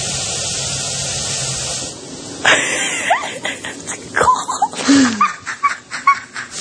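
Shower running with a steady hiss of spray, which falls away about two seconds in. It is followed by a person's voice in short, loud cries and laughs that bend up and down in pitch.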